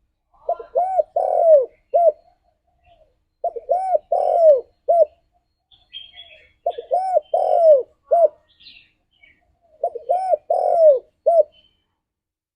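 Spotted dove cooing: four phrases about three seconds apart, each a quick run of low, arched coos ending in a short final note.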